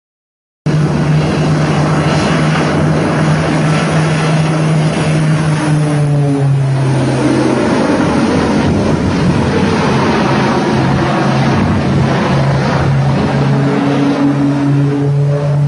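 Loud, steady roar of a jet airliner's engines during a low flyby, with a low hum underneath. It starts abruptly after a moment of silence.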